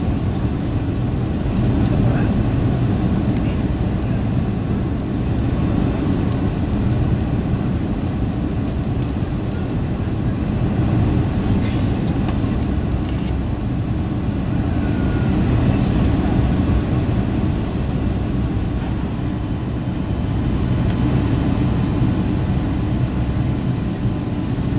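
Boeing 757-300 cabin noise during the climb after take-off: a steady low rush of engines and airflow, heard from inside the cabin behind the wing.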